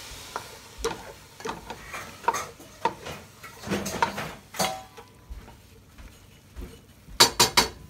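Wooden spatula stirring morel mushrooms in a stainless steel pot, with irregular scrapes and taps against the pan. Near the end comes a quick run of about four sharp clinks.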